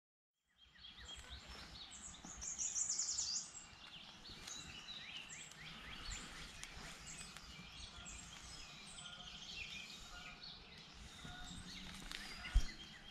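Several songbirds singing together in woodland, with many short chirps and trills and one loud high trill about two to three seconds in, over a low rumble. A single thump near the end.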